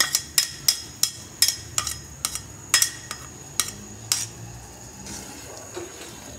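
Repeated sharp clinks of a ceramic bowl and utensil knocking against a steel soup pot as shredded chicken is tipped in, about three a second, stopping about four seconds in.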